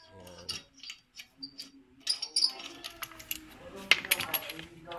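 Metal tools clinking and tapping against metal in a repair shop, a few light clinks and one sharper, louder clink about four seconds in.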